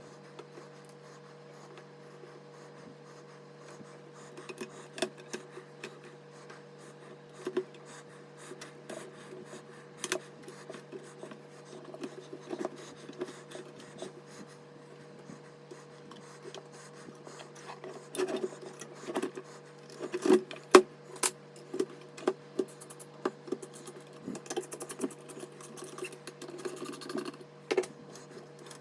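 Hands handling PC parts: scattered clicks, taps and rubbing of plastic and metal, sparse at first and busier in the second half, the sharpest click about two-thirds of the way in, over a steady low hum.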